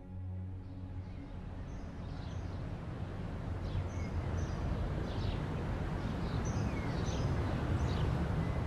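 Soft ambient music dies away in the first second and gives way to an outdoor noise bed that slowly grows louder, with small birds chirping: short, high chirps scattered every second or so.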